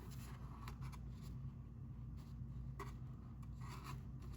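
Faint rustling and scraping of cardstock as the pop-up clover piece is handled and pressed into place on the card, a few short scratchy rustles over a steady low hum.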